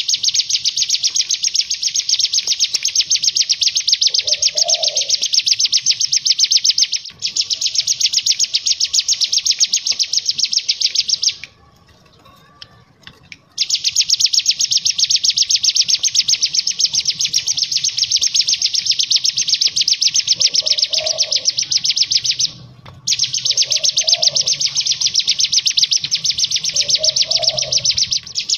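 Cigun (brown prinia) singing its fast 'ngebren' song: a long, even run of rapid repeated high notes lasting many seconds at a time. It stops for about two seconds near the middle and breaks off briefly again later.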